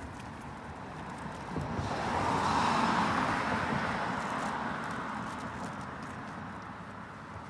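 A car drives past on the street, its tyre and engine noise swelling to a peak about three seconds in and then fading slowly as it moves away.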